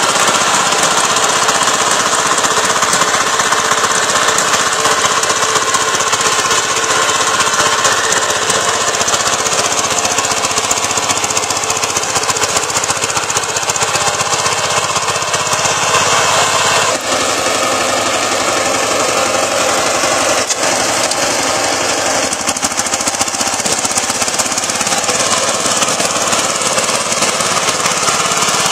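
VST 130 DI power tiller's single-cylinder diesel engine running steadily under load, knocking as the tiller works the soil.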